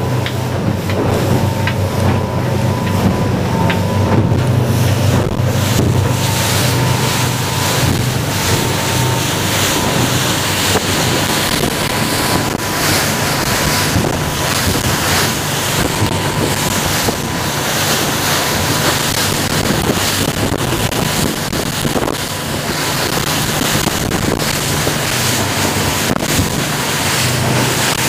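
K-13 motorboat running fast, heard from its wheelhouse: a steady low engine drone under the rush of water and spray along the hull, with wind noise on the microphone.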